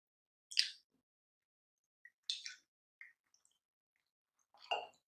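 A metal spoon scraping and clinking on a ceramic plate as soft fruit flesh is scooped, in three short separate scrapes with wet mouth sounds of eating between.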